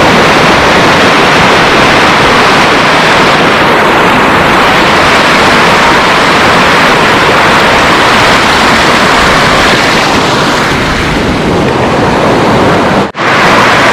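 Loud, steady rush of flowing river water, cut off by a brief dropout near the end.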